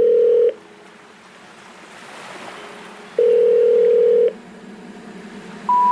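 Telephone call tones, likely part of the background music: a steady ringing tone about a second long ends about half a second in and sounds again about three seconds in, with a hiss swelling between them. Near the end, three short rising tones begin, the intercept signal of an unreachable number.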